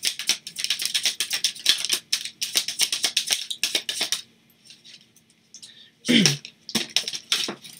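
A deck of tarot cards being shuffled by hand: a fast run of papery flicks and clicks for about four seconds, a pause, a short falling vocal hum, then another brief burst of shuffling near the end.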